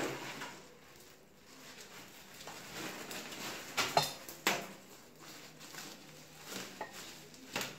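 Handling sounds from a soft bonnet hood-dryer attachment being opened out by hand: fabric rustling with several short sharp taps and clicks, the clearest about four seconds in and near the end.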